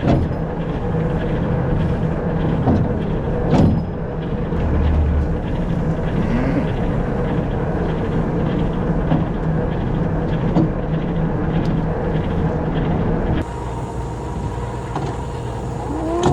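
Vehicle engine running steadily at low speed, with a few short cattle calls heard over it. The engine sound changes abruptly about three-quarters of the way through.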